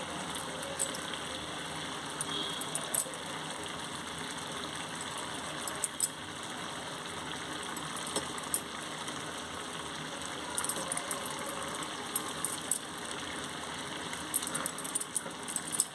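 A thin onion-tomato gravy boiling hard in a steel pan: steady bubbling with frequent sharp pops and spits.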